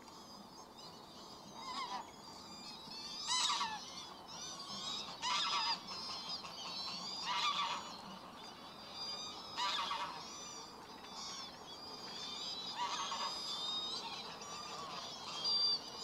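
A flock of geese honking, about six loud honks spaced roughly every two seconds, over a steady chatter of higher calls from other waterbirds.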